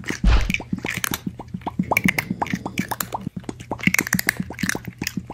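Rapid, irregular wet smacking and crunching eating sounds, like loud chewing of crispy fried chicken, several sharp pops a second.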